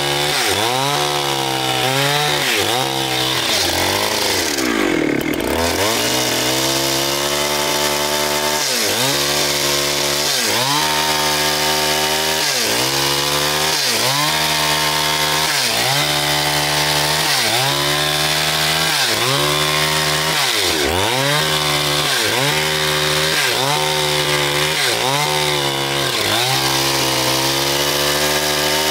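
Chainsaw engine running under load, cutting into a large log. Its pitch sags and recovers about once a second as the chain bogs in the cut, with one deeper sag about five seconds in.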